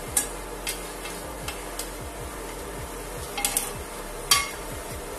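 Light clinks and taps of a steel plate against a nonstick kadai as ground spices are tipped in. There are several small sharp clicks, the loudest about four seconds in, over a steady low background hum.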